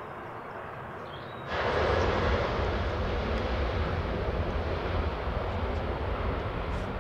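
Four-engined Boeing 747-400 jet airliner on final approach, its engines making a steady rumble and rush. About a second and a half in, the sound cuts abruptly from a faint, distant noise to a much louder, closer engine noise.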